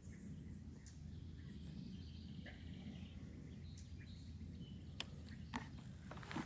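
Birds chirping faintly over a low, steady background rumble, with two sharp clicks about five seconds in.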